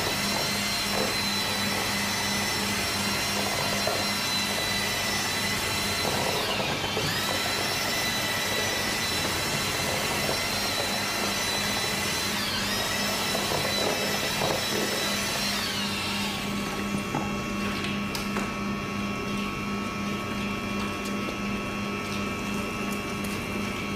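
An electric power tool's motor running steadily with a whine over a low hum. Its pitch sags and recovers about seven seconds in and again around thirteen to sixteen seconds in. After that the higher whine falls away and the hum carries on.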